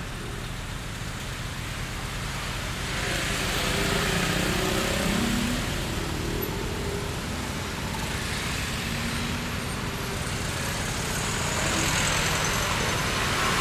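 Street traffic ambience: a steady bed of road noise with cars passing, swelling as vehicles go by about four seconds in and again near the end.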